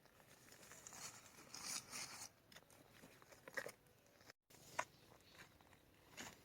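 Faint rustling and crinkling handling noises with a few short clicks and taps, broken by a moment of total silence about four seconds in.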